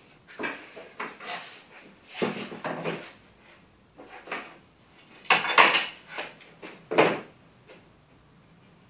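Knocks, clicks and scraping of a glued wooden batten being shifted back into place on an MDF board and fastened with spring clamps, in several bursts of handling, the loudest about five to seven seconds in.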